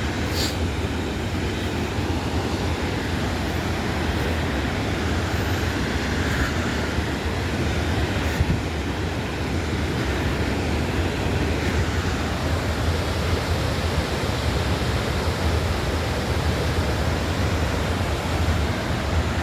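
Steady rush of a large waterfall: Crescent Falls, fast water pouring down the Bighorn River.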